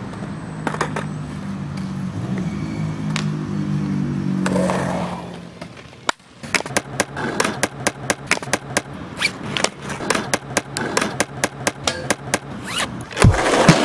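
Skateboard wheels rolling on concrete with a low droning hum and a scrape about four and a half seconds in. After a brief drop, a run of sharp board clacks and wheel impacts comes thick and fast.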